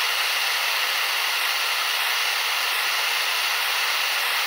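Handheld gas torch burning with a steady hiss, its blue flame held on a seized steel screw in an aluminium housing.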